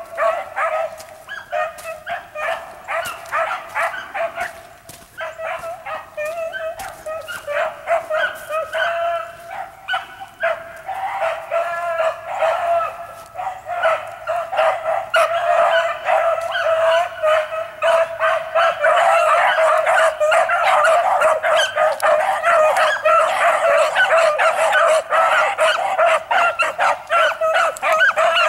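A pack of rabbit-hunting dogs in full cry running a rabbit, many voices barking, yipping and howling at once without a break. The chorus grows thicker and louder about halfway through.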